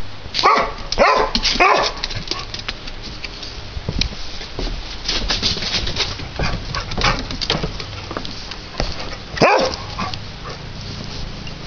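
Small black-and-tan dog barking: three quick barks in the first two seconds, then one more near the end, with footsteps and rustling between them.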